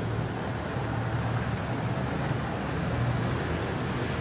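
Steady outdoor background noise: a constant low rumble with an even hiss over it and no distinct events.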